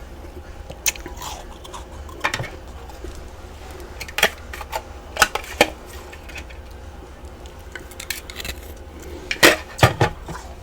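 Chunks of freezer frost clinking and knocking against a hard container as they are handled. The sharp knocks are scattered, with the loudest cluster near the end.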